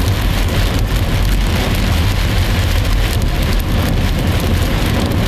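Heavy rain beating on a car roof and windscreen, loud and steady, with a deep rumble underneath.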